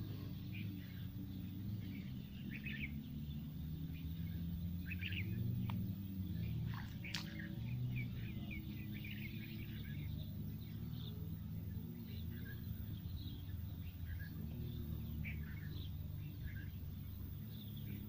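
Birds chirping and calling in short scattered notes, with one sharper call about seven seconds in, over a steady low rumble.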